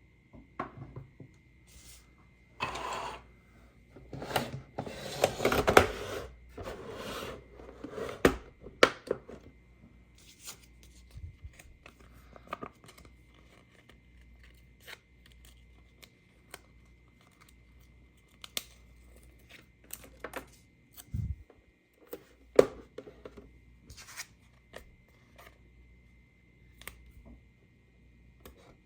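Hands handling a plastic toy playset and its packaging. Rustling and tearing noises come over the first several seconds, then scattered light clicks and taps of plastic pieces, over a faint steady high tone.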